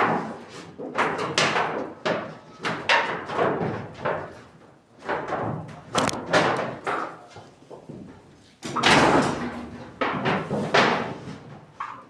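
Irregular knocks and scrapes of building work, about one a second, with the loudest strike about nine seconds in.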